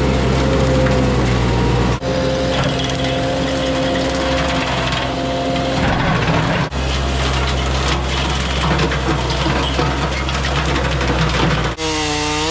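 Mini skid steer engine running steadily under load, heard in several short clips joined with abrupt cuts that change the engine's pitch each time. Near the end the engine pitch slides down and back up.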